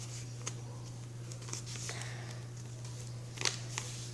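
A sheet of paper being folded and creased by hand: faint rustles and light taps. The sharpest are two quick taps about three and a half seconds in.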